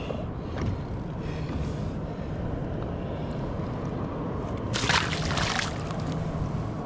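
Water sloshing and lapping around a kayak, with a brief louder rush of noise about five seconds in.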